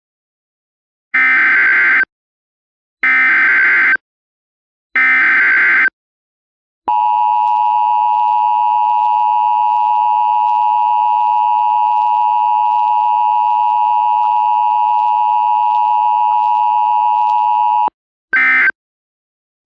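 Emergency Alert System tones: three one-second warbling bursts of SAME header data, then a steady attention tone of about eleven seconds, cut off and followed by a short data burst near the end.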